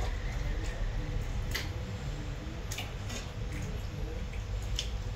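Metal spoon stirring and scooping thick curry sauce in a cooking pot: soft squelching of the sauce and a few light clicks of the spoon against the pot, over a steady low hum.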